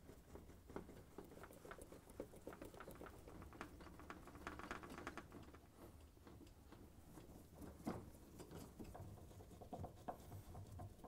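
Faint, irregular clicking and scraping of a hand Phillips screwdriver turning screws into a dishwasher's inner and outer door panels, with one sharper click about eight seconds in.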